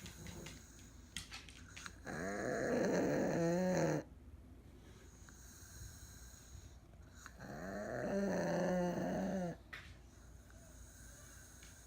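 An elderly pug snoring in its sleep: two long, pitched snores about five seconds apart, each lasting about two seconds. The second swells up gradually and both cut off sharply. Quiet breathing fills the gaps between them.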